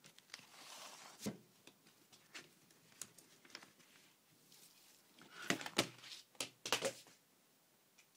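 Handling noise from a 12-inch vinyl record and its cardboard sleeve being handled and the record drawn out: light rustles and a scatter of soft taps and clicks, busiest and loudest about five and a half to seven seconds in.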